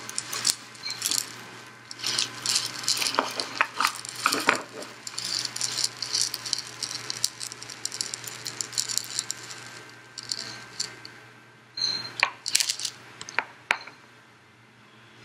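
Small rattles, clicks and clinks from a desk globe being handled and set in place on its stand, dense at first and thinning out, with a few sharp clicks near the end. A steady low hum runs underneath.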